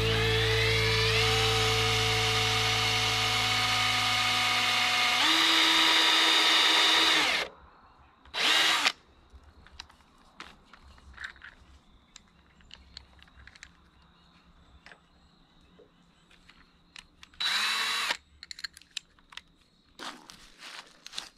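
Power drill running on a wooden screen-door frame. A long run of about seven seconds speeds up about a second in and again around five seconds, then stops. Two short bursts follow, near nine seconds and near eighteen seconds, with light knocks and clicks between.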